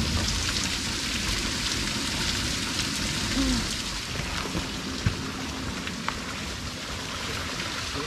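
Small mountain waterfall and stream, water rushing with a steady hiss. A couple of short knocks sound about five and six seconds in.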